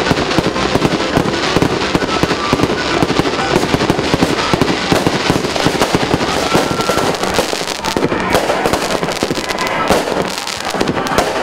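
Fireworks display: a dense, continuous run of bangs and crackling from aerial shells and firecrackers, many pops a second.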